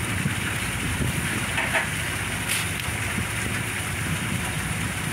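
Steady low rumbling background noise, with a couple of short crunching scrapes of a shovel digging into and tossing crushed ice, about one and a half and two and a half seconds in.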